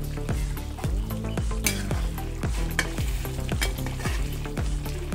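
Background music with a steady beat, over a thick masala curry bubbling in a pan and being stirred with a ladle.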